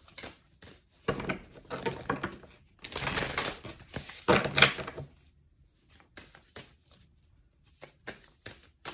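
A tarot deck being shuffled by hand: several bursts of crisp card rustling and flicking in the first half, then a few scattered light clicks and taps from the cards.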